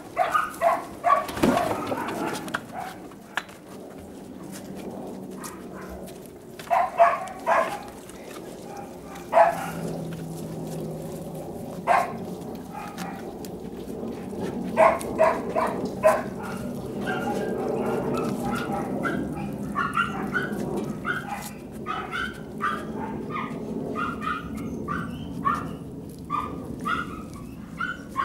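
Young Caucasian Shepherd dogs barking and yipping in short, repeated bursts, with the calls coming more often in the last third.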